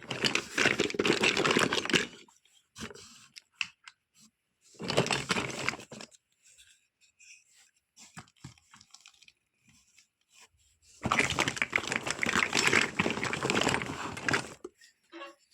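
Plastic packaging being handled during a toy unboxing: three spells of crinkling, tearing rustle with small plastic clicks in the pauses between them.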